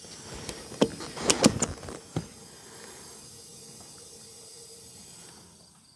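A few sharp clicks and knocks, then a steady hiss of air for several seconds that fades out near the end: a small wood-chipper tire being aired up while its bead is being coaxed to seal on the rim.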